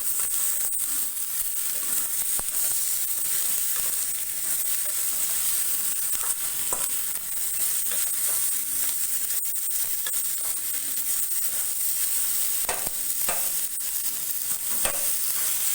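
Chopped tomato with onion and coconut frying in oil in a kadai, sizzling steadily, with scattered clicks and scrapes of stirring.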